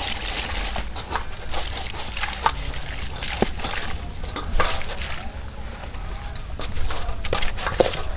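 Ceramic bowls and aluminium basins clinking and knocking together as dishes are washed by hand, with water sloshing. The clinks are scattered and irregular, a few ringing briefly.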